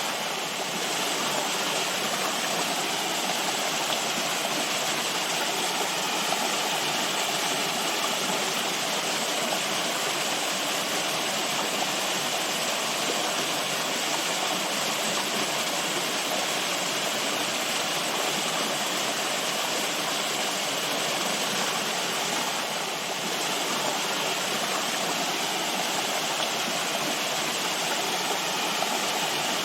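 Running water rushing steadily, an even wash of sound with no breaks or separate splashes.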